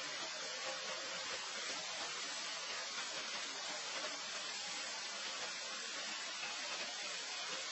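A steady, even hiss with no separate sounds in it.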